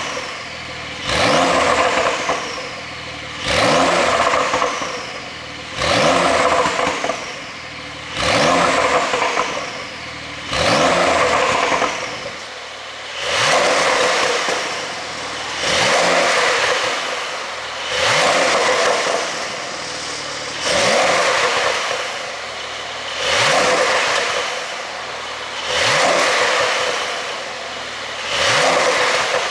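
Porsche 911 Carrera S (992) twin-turbo flat-six free-revving through its exhaust, blipped about a dozen times at an even pace, roughly every two and a half seconds, each rev rising quickly and falling back to idle.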